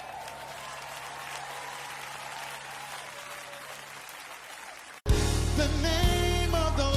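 Congregation applauding, with faint voices calling out. About five seconds in it cuts off abruptly and loud music with a singer comes in.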